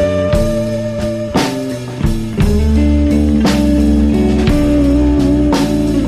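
Blues record playing: electric guitar over bass and a drum kit keeping a steady beat.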